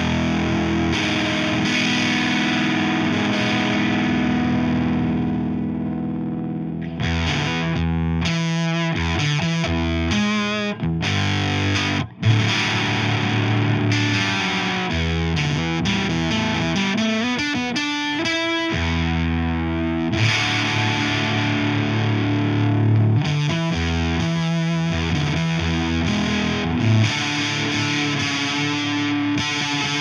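Electric guitar played through a Veri-Tone Beehive drive pedal into a Fender Hot Rod Deluxe amp: distorted chords and riffs in several short passages with brief breaks between them, each at a different setting of the pedal's Buzz (gain) knob.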